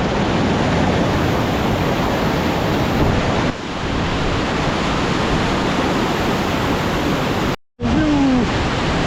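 A waterfall heard close up: a loud, steady rush of falling water, which cuts out for a moment about three-quarters of the way through.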